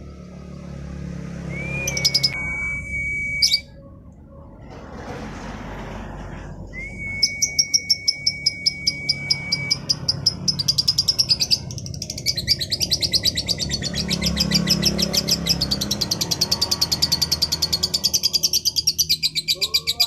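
Female lovebird singing: two long, steady whistled notes, then from about a third of the way in a fast string of short, high, sharp notes that turns into a dense, rapid chatter running on and on.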